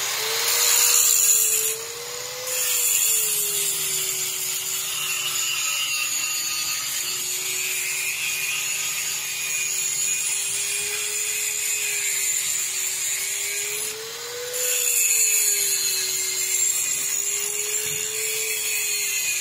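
A small motor running steadily, with a whine that wavers slowly up and down in pitch over a loud hiss. It dips briefly twice, about two seconds in and again near the end.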